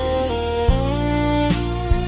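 Background music: a slow melody of held notes over a steady low accompaniment with a light regular beat.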